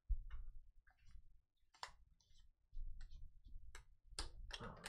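Scattered light clicks and taps of small objects being handled on a desk, irregular and growing more frequent near the end, over a low handling rumble.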